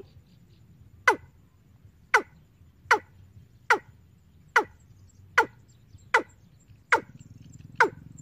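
Recorded 'ayam tembaga' bird call played through a bird-trapping amplifier's speaker: a series of short notes, each dropping steeply in pitch, repeated a little faster than once a second. A faint low hum comes up near the end.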